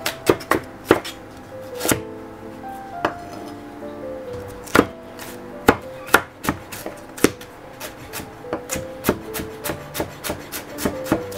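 Chef's knife chopping onion and then carrot on a wooden cutting board: irregular, sharp knocks of the blade on the wood, over light background music.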